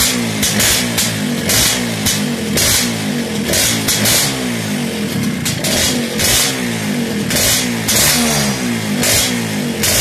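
Suzuki X3 motorcycle engine revved over and over through an aftermarket stainless slip-on muffler, loud, with a rising rev about once a second.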